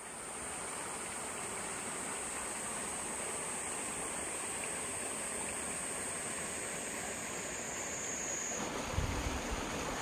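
Mountain stream running over rocks, a steady rushing sound, with a steady high-pitched whine above it and a few low thumps near the end.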